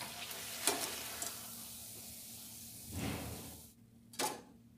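Hot oil sizzling in a kadhai as fried batata vadas are lifted out with a wire-mesh skimmer, with a few light clicks of the skimmer against the pan. The sizzling cuts off suddenly a little over three seconds in, and one short knock follows near the end.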